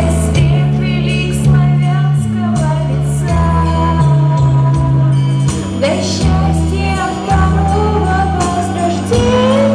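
A woman singing a song with instrumental accompaniment and a moving bass line; her voice holds long notes with vibrato.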